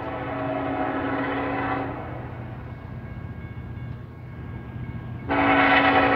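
Diesel locomotive's air horn sounding as the train approaches: one blast ending about two seconds in, then after a short pause a second, louder blast starting near the end, over a low rumble.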